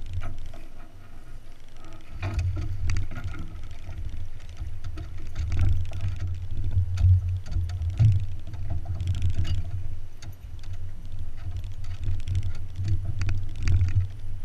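Uneven low rumble of wind buffeting the boat-mounted camera's microphone, with scattered knocks and rattles on the skiff's deck as a shad is brought aboard.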